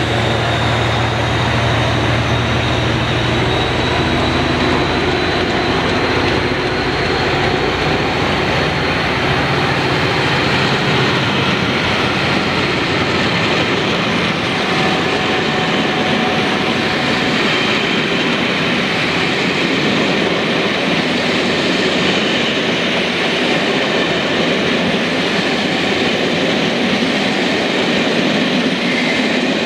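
A train passing close by: a locomotive's engine is heard for the first few seconds and fades, then a steady rush of coaches rolling past with wheel noise on the rails.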